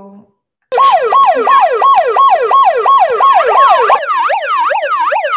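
Handheld megaphone's siren sounding over a video call: a loud wailing tone that sweeps up and down about three times a second. About four seconds in it switches to a different sweep pattern.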